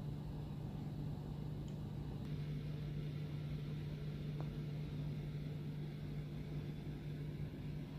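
Steady low mechanical hum with one constant low droning tone under a faint even hiss, typical of a vessel's running machinery or ventilation heard inside a cabin.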